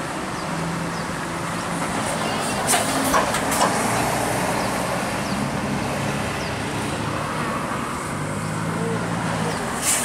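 Buses and cars driving past on a road: engines running steadily with tyre and road noise, and a few sharp clicks about three seconds in.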